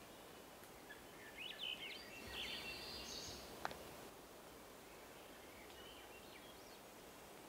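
A small bird calling with a quick run of high chirps and trills for about two seconds, starting about a second in, over a steady outdoor hiss. A single sharp click comes just after the calls, and a few faint chirps follow near the end.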